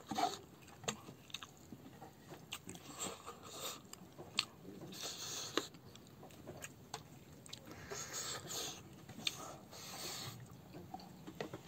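A person chewing and smacking their lips with a mouthful of rice eaten by hand, close to the microphone. Sharp wet smacks and clicks come scattered throughout, with short stretches of louder chewing.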